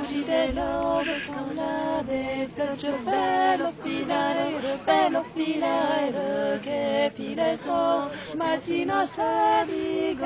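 Women singing a traditional Occitan spinning song (chant de quenouille) in long held, wavering notes, phrase after phrase.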